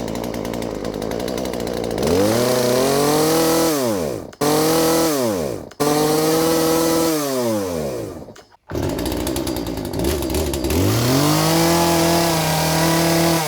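Poulan P3416 34cc two-stroke chainsaw idling, then revved up and let fall back three times, with a few short sudden breaks in the sound. It holds the throttle without dying, running on a newly fitted Hipa carburetor.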